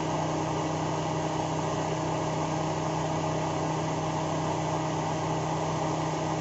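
Toyota Corolla 4A-FE four-cylinder engine idling with a steady, unchanging hum.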